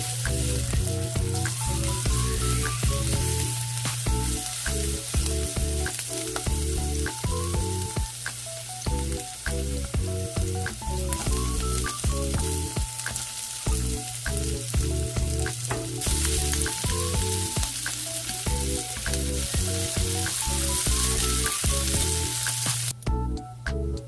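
Food sizzling and frying in a pan as it is stir-fried, under background music with a melody and bass line; the sizzling cuts off suddenly about a second before the end while the music carries on.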